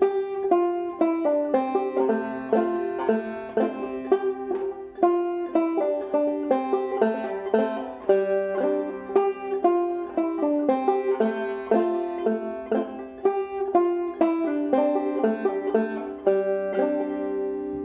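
Deering Goodtime open-back banjo played clawhammer style: a continuous run of plucked, ringing notes in an even rhythm, the strings brushed and struck down by the picking hand.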